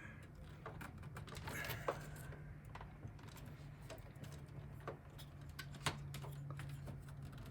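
Faint, scattered small clicks and taps of computer drive parts and power connectors being handled, a couple of them sharper, over a low steady hum.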